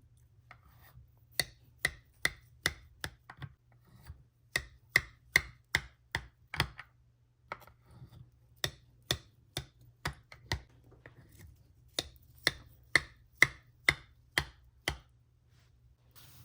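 A kitchen utensil repeatedly striking a dish with sharp clinks, in bursts of five to eight strokes at about two to three a second, with short pauses between bursts. A faint steady low hum sits underneath.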